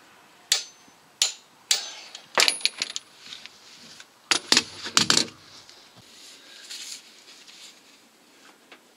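Metal hand tools clicking and clinking: a wrench and socket worked on and then taken off the crankshaft pulley bolt. Three sharp clicks in the first two seconds are followed by two bursts of clinks, and fainter rattles near the end.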